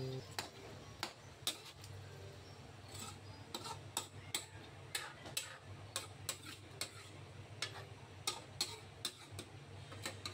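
Metal ladle stirring chicken curry in a metal wok, faintly clicking and scraping against the pan about twice a second in an uneven rhythm.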